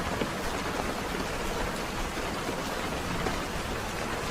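Steady rain falling, an even hiss with faint patter of drops.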